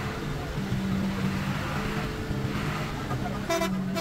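Hino 1J bus engine droning steadily, heard inside the cabin over road and rain noise while driving through heavy rain. A short horn toot sounds about three and a half seconds in.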